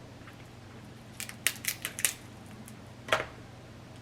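Close-up eating sounds from a blue crab meal: a quick run of sharp clicks and cracks about a second in, then one louder crack about three seconds in, as shell is cracked and chewed.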